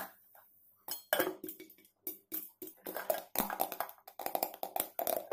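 Popcorn kernels popping in a covered steel pot: many sharp pops in quick, irregular succession, starting about a second in and growing denser.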